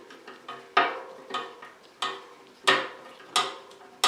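Sharp metallic clinks on a bicycle wheel's spokes as a new spoke is tightened, each with a short ring, about seven in a row at uneven intervals.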